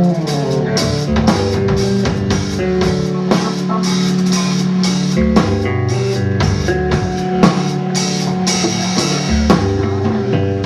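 Instrumental rock trio playing live: electric guitar and bass guitar holding sustained notes over a drum kit keeping a steady beat.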